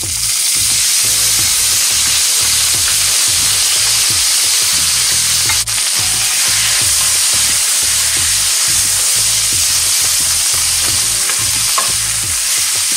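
Moringa (drumstick) leaves sizzling steadily and loudly in hot tempering oil in a pan as they are sautéed.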